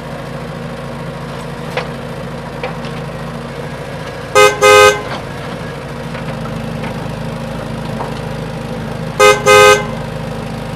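A steady low engine hum of a driving vehicle, broken twice by a loud vehicle horn giving a short beep followed by a longer one: once about four seconds in and again about nine seconds in.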